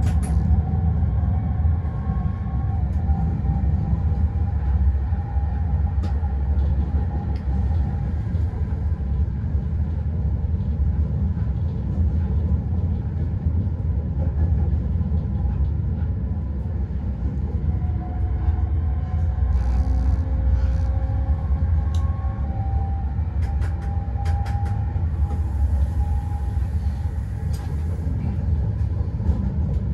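Steady low rumble of a Newag Dragon locomotive running along the track, heard from inside its cab, with faint whining tones that rise and fade. A few sharp clicks and a stretch of high hiss come past twenty seconds in.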